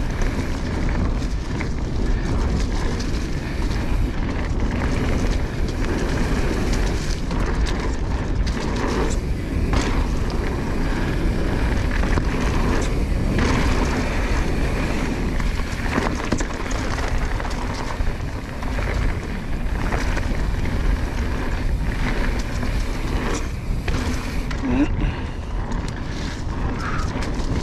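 Mountain bike rolling fast down a dirt flow trail, with wind buffeting the microphone and tyre rumble making a steady low roar. Occasional knocks and rattles come from the bike over bumps.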